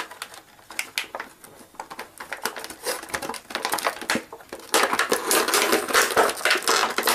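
Clear plastic blister tray crinkling and crackling as an action figure is pushed and pried out of it, feet first. The crackling grows louder and denser about two-thirds of the way through.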